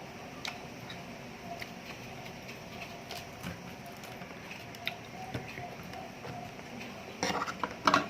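Eating sounds close to the microphone: scattered small clicks and smacks of chewing fried chicken, with a louder burst of crackling and rustling about seven seconds in.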